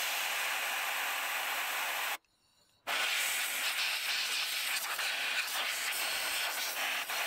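Compressed-air blow gun hissing in two blasts, cut off for under a second about two seconds in, blowing debris away from the coil packs and spark plug wells.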